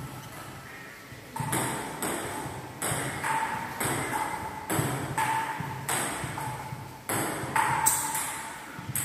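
Table tennis rally: the ping-pong ball clicking back and forth off the paddles and the table at a steady rhythm of roughly two hits a second. The rally starts about a second and a half in.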